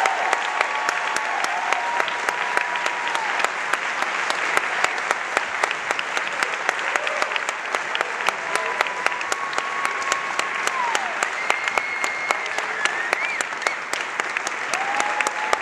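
An audience applauding a live percussion ensemble at the close of a piece, with dense clapping and a few cheers rising over it.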